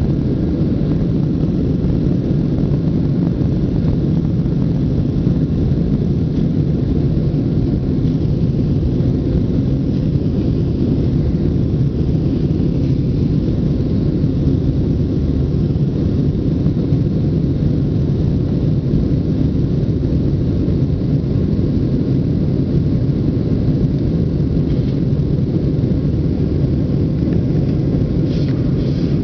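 Steady, deep engine noise inside the cabin of a Boeing 737-700 at takeoff power, heard from a window seat over the wing: its CFM56 turbofans run through the takeoff roll, liftoff and initial climb.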